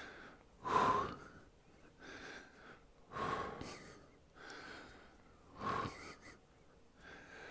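A man's heavy breathing close to a headset microphone, from the exertion of a warm-up exercise: three louder breaths about two and a half seconds apart, with softer breaths in between.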